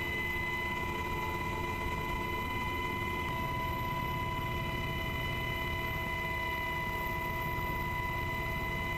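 Aircraft engine noise heard from inside the cabin: a steady low rumble under a constant high whine.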